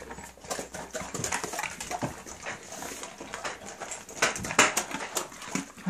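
A dog eating dry kibble from a stainless steel bowl: quick, irregular crunching and clinks of kibble against the metal.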